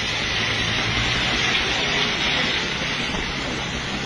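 Steady hiss of rain on a wet road, with a vehicle engine running low underneath.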